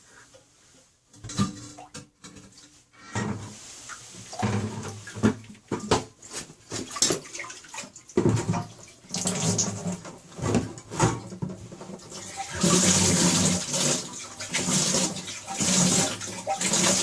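Water left in a lifted toilet's bowl and trap pouring and splashing into a bucket as the toilet is tilted, in uneven gushes that are heaviest over the last few seconds. Knocks and scrapes of the porcelain being handled come before the pouring.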